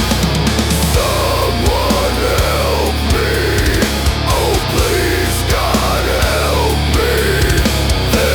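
Heavy metal music: a loud, dense band mix with a heavy low end, and from about a second in a lead melody whose pitch bends up and down over it.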